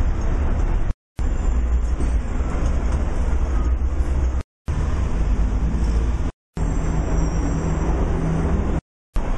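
Hong Kong double-decker tram running: a steady low rumble with general noise over it, cut off by four brief silences.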